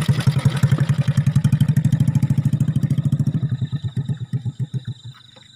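A small engine running with a fast, even putter that fades away over a second or two as it moves off. Once it is gone, insects keep up a steady high trill.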